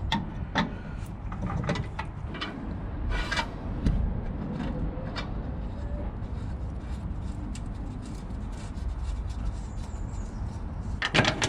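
Scattered clinks and knocks of a spanner working on the truck's metal air-line fittings, over a steady low rumble, with one brief scrape about three seconds in.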